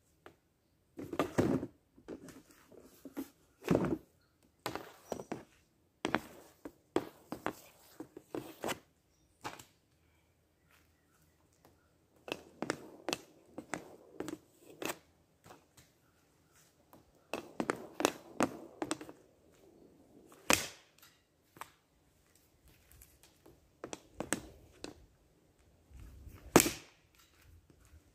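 Hockey stick blade clacking and scraping on a homemade shooting pad as shots are taken, with the thunks of pucks or balls being struck. The sharp hits come in clusters with short pauses between them.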